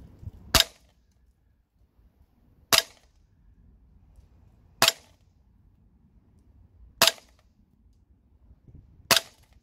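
VFC Sig Sauer M17 gas blowback airsoft pistol on green gas firing five single shots through a chronograph, about two seconds apart, each a sharp crack.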